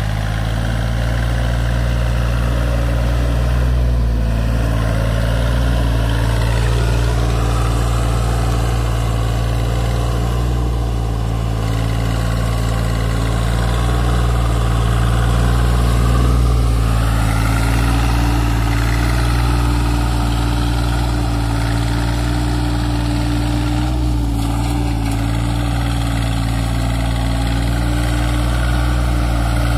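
Deutz-Fahr four-wheel-drive tractor's diesel engine running steadily while it works through deep mud, its pitch wavering slightly up and down.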